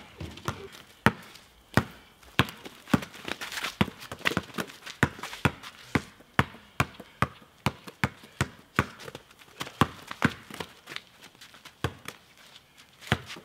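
A long run of sharp taps, uneven but about two a second.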